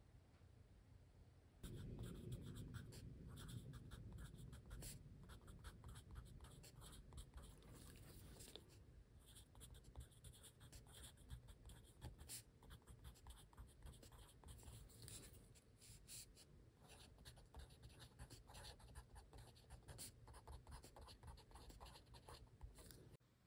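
Faint scratching of a pencil writing on a paper notepad, in many short quick strokes, starting about two seconds in and stopping just before the end.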